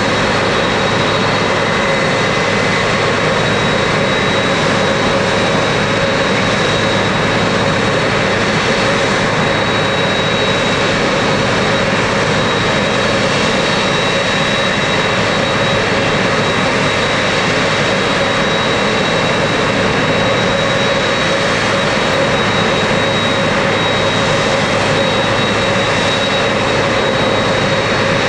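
Jet engines of a Boeing 767-300ER (GE CF6-80C2 turbofans) running steadily, a constant rush with a high whine held at one pitch.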